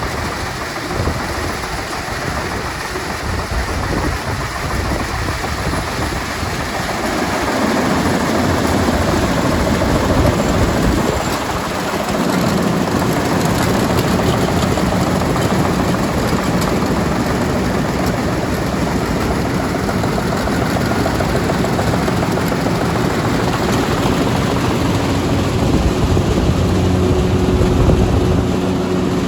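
Farm machinery running steadily: a continuous mechanical rumble and rattle, with a low engine-like hum that comes up more strongly in the last few seconds.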